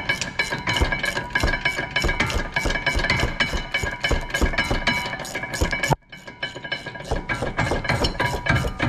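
Ratcheting wrench clicking fast and evenly, about five or six clicks a second, with a metallic ring, as a rusted rear brake caliper bracket bolt is spun out. The clicking breaks off for a moment about six seconds in, then carries on.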